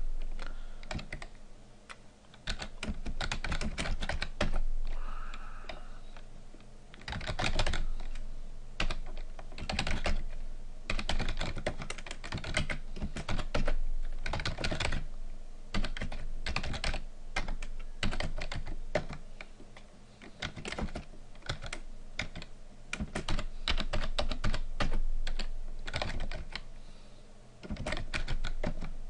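Computer keyboard being typed on in quick, irregular runs of keystrokes with short pauses between.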